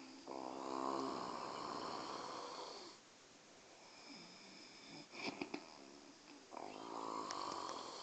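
A sleeping person snoring: two long, rattling snores, the first starting just after the start and lasting about two and a half seconds, the second starting about six and a half seconds in. A few short clicks fall between them.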